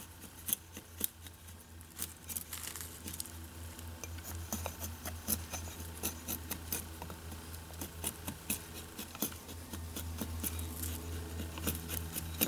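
Handheld axe head, used without a handle, shaving and chopping down a split wooden stick stood upright on a log to rough out an axe handle: a string of irregular sharp cuts and taps of steel biting into wood.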